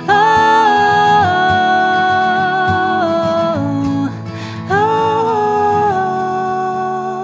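A man and a woman singing long held notes together over strummed acoustic guitars, in a slow worship song. The voices drop out briefly about four seconds in, then come back.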